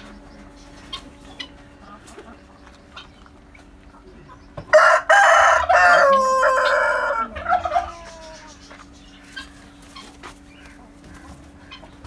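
A rooster crowing once, loud, about five seconds in, the call trailing off in a falling note.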